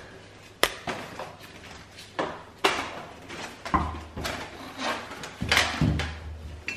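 White wire-mesh basket being handled and turned over: a string of short knocks and rattles, with rustling in between.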